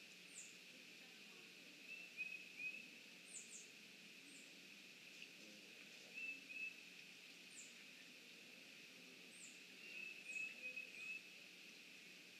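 Faint outdoor ambience: small birds calling, with thin, very high, down-slurred chirps scattered through and short runs of quick notes about two, six and ten seconds in, over a steady faint high hiss.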